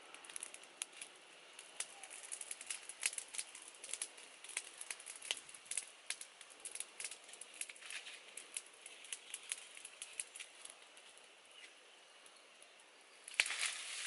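Small wood fire crackling under a cooking pot, with many irregular sharp pops. Just before the end comes a louder rustle of dry leaves and twigs being handled.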